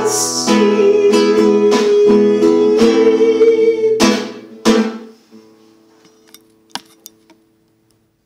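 Classical guitar strummed in a steady rhythm under a man's voice holding a long final sung note. The song closes with two strong strums about four and a half seconds in, the last chord ringing out and fading, followed by a few faint clicks.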